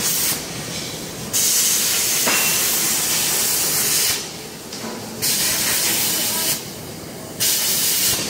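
Loud hiss that switches on and off abruptly: a brief burst at the start, then bursts of about two and a half seconds, about a second, and about a second near the end, with a quieter steady hiss in between.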